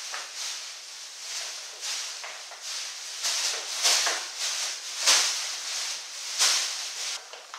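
A large plastic bin bag shaken and waved through the air, rustling and crackling in a string of swishes that grow louder, the strongest about four, five and six and a half seconds in.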